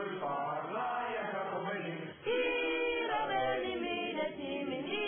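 A choir singing, with a short break about two seconds in before the next phrase.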